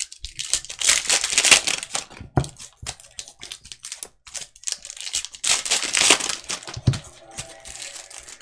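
Clear cellophane wrapper of a Panini Prizm basketball cello pack crinkling and tearing as it is pulled off the stack of cards. The crackling comes in two louder spells, with a few light knocks between them.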